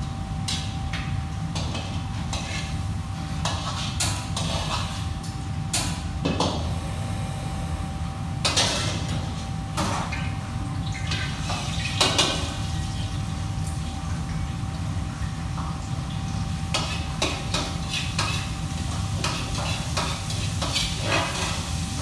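Commercial kitchen wok station: a metal ladle and utensils clank and scrape against woks and pans in scattered, irregular knocks, loudest around the middle. Under them run the steady low rumble of the exhaust hood and burners and a thin constant tone.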